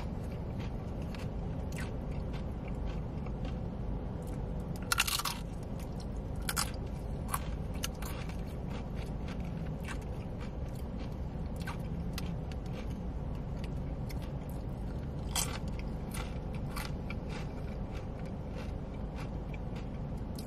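Close-miked chewing and crunching of food, with a few sharper, louder crunchy bites about five seconds in and again near fifteen seconds, over a steady low hum.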